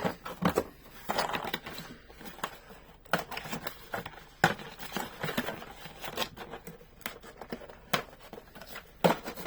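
Toy packaging being handled and opened: cardboard and plastic scraping and rustling, with irregular sharp clicks, the loudest about four and a half seconds in.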